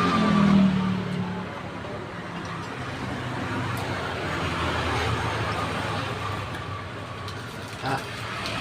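Road traffic passing close by: engine and tyre noise swelling and fading, loudest in the first second with a low engine note. A short click near the end.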